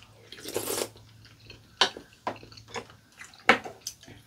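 People eating sujebi, a hand-torn dough soup: a short slurp about half a second in, then chewing with several sharp clicks of spoons and chopsticks against the bowls.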